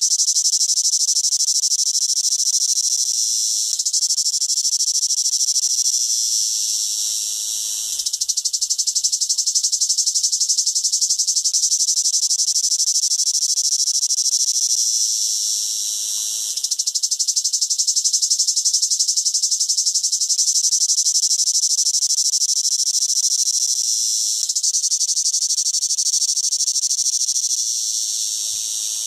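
A cicada singing: a loud, continuous high-pitched buzz that weakens and sags about every eight seconds, then starts again at full strength.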